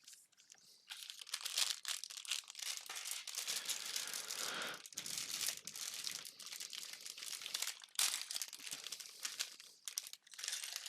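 Plastic parts bag of a Lego set crinkling as it is torn open and handled, a continuous rustle with many small crackles that dips briefly about five seconds in.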